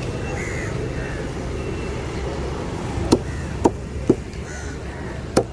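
Four sharp chops of a heavy knife striking through yellowfin tuna onto a wooden board, the first about three seconds in, over a steady rumble of road traffic.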